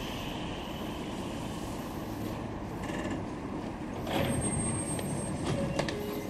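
Meitetsu 3300-series electric train standing at the platform after stopping, with a steady mechanical hum. About four seconds in there is a sudden hiss of air as its doors open, and brief short tones follow near the end.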